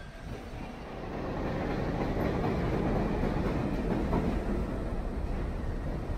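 Elevated subway train rumbling along the steel viaduct overhead. It swells about a second in and stays loud.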